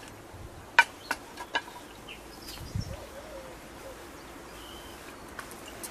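Four sharp clicks or taps in quick succession about a second in, the first the loudest, then a single dull thump, with a few faint bird chirps over a steady outdoor background.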